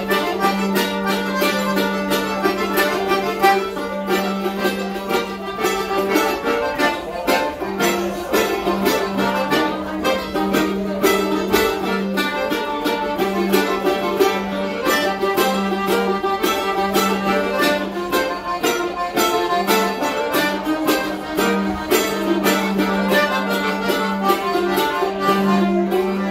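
Mandolin and piano accordion playing a Celtic fiddle tune together: rapid picked mandolin notes over accordion chords, with a steady low note held underneath.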